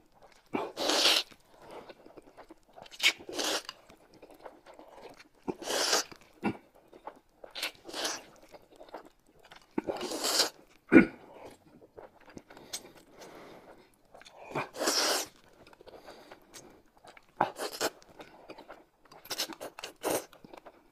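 Close-miked eating: noodles and soup slurped in separate bursts every second or two, with chewing between them. There is a sharp click about eleven seconds in.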